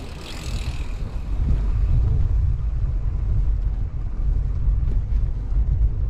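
Wind rumbling on the microphone while cycling over a brick-paved street, with a steady low rumble from the tyres on the pavers. A short hiss comes right at the start as another cyclist passes close by.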